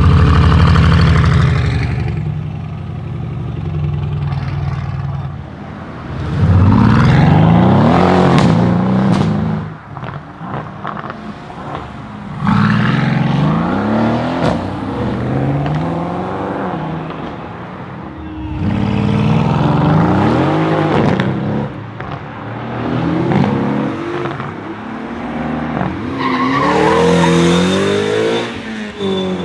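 Mercedes-AMG GT S's twin-turbo 4.0-litre V8 on a straight-pipe exhaust, loud, accelerating hard several times, its pitch climbing and dropping back in steps through gear changes. A cluster of sharp exhaust crackles sounds after the second pull.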